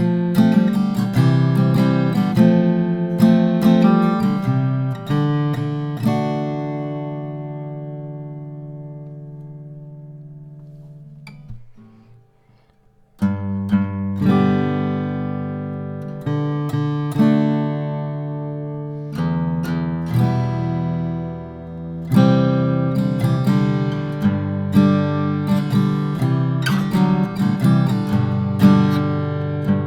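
Martin 0012-28 acoustic guitar played solo: chords and picked notes, then a chord left to ring and fade out for about five seconds, a brief pause, and the playing picks up again about thirteen seconds in.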